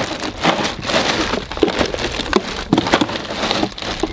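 Plastic bag of ice crinkling and rustling in a cooler as it is handled: a dense crackle of many small clicks.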